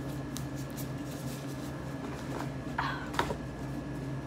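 Honeycomb being chewed with the mouth closed: quiet wet mouth clicks and smacks, a few of them sharper about three seconds in, over a steady low hum.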